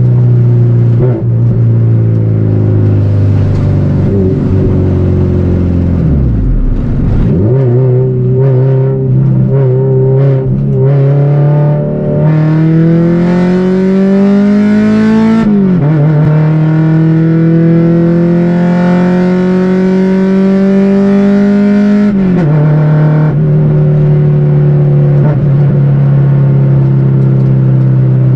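Honda Civic EG's SOHC VTEC four-cylinder engine and exhaust heard from inside the cabin while driving. A steady drone dips briefly about six seconds in. The revs then climb and drop suddenly at a gear change just past the middle, climb again more slowly, and fall back about three-quarters of the way through to a steady cruise.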